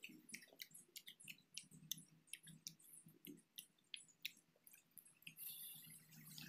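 Faint, wet chewing of juicy bilimbi fruit, with small irregular clicks of the mouth, two or three a second.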